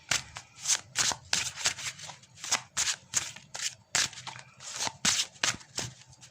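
A tarot deck being shuffled by hand: a steady run of short, crisp card strokes, about two or three a second.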